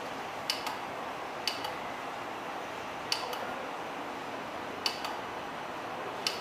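Short sharp clicks, several in close pairs, coming every second or two over a steady hiss.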